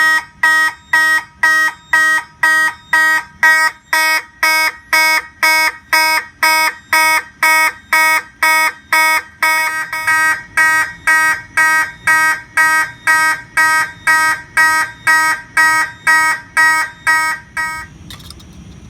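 FCI HP-B4 mechanical fire alarm horn sounding in march time, a buzzing blast about twice a second. It stops about 18 seconds in.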